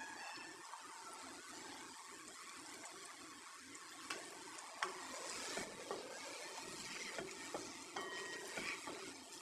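Faint cooking sounds from a karahi: a steady hiss with a few sharp clicks, two of them about four and five seconds in.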